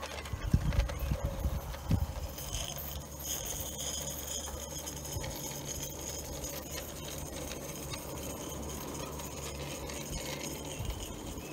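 A 16mm-scale model train running over garden railway track, its wheels clicking and knocking over the rail joints, most sharply in the first two seconds, over a steady low hum.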